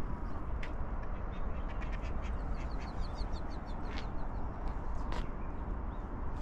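Eastern spot-billed ducks quacking, with a quick run of short calls in the middle, over a steady low rumble.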